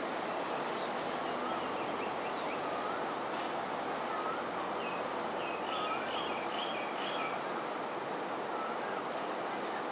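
Steady background rush of distant vehicle noise, with faint small-bird chirps repeating every second or so and a few short chirp clusters higher up.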